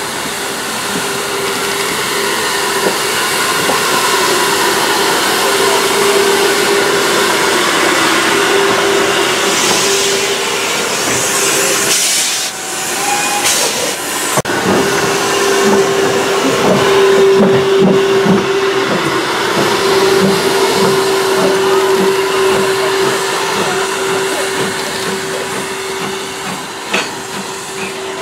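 Steam locomotive, an LSWR Beattie 2-4-0 well tank, hissing steam that blows low around its cylinders, with a steady humming tone under the hiss. There is a short break about twelve seconds in, then soft low puffs about twice a second for a few seconds.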